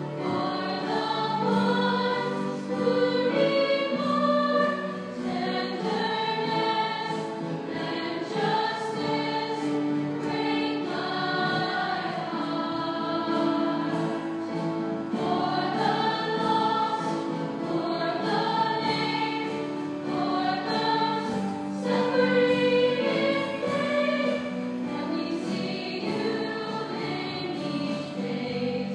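Music: a choir singing a slow song in held notes.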